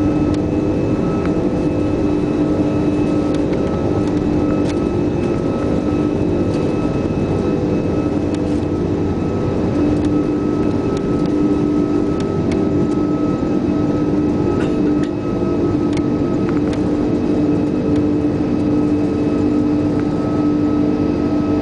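Airbus A340-600's Rolls-Royce Trent 500 turbofan engines running at takeoff power, heard inside the cabin: a loud, steady engine noise with several held tones. A few faint clicks come through.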